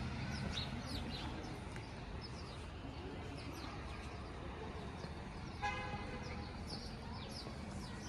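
Sparrows chirping in short, quick falling calls over a low rumble of city traffic; a vehicle horn toots once, briefly, about two-thirds of the way through.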